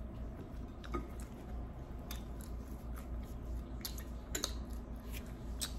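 Close-up chewing and biting of a hard, thick deep-fried puri, with about five sharp crunches spaced through the chewing, over a steady low hum.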